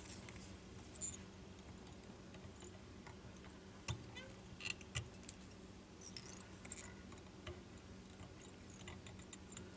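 Faint, scattered light clicks and ticks of a whip finish tool being turned around the hook behind the bead to tie off the thread, over a low steady hum.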